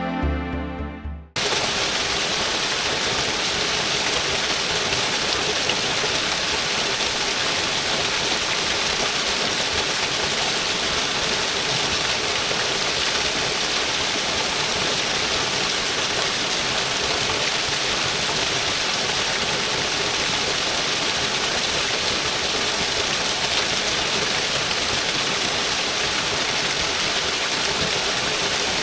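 Music fades out about a second in, then a waterfall rushes steadily, heard close by.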